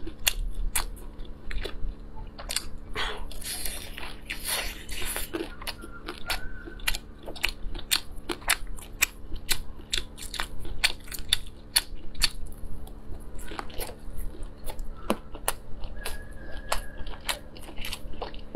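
Close-miked chewing and biting of grilled sausages, with many quick, wet mouth clicks throughout.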